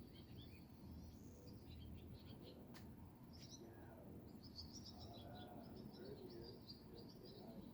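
Small birds chirping in quick, high twittering runs over a faint low background rumble, with one sharp click about three seconds in.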